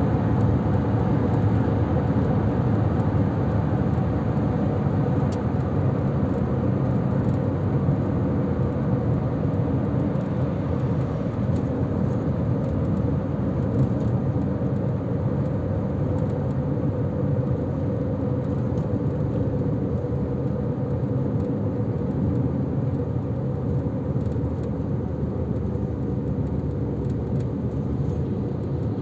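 A car driving at steady speed, heard from inside the cabin: a steady rumble of tyres on the road with the engine humming under it.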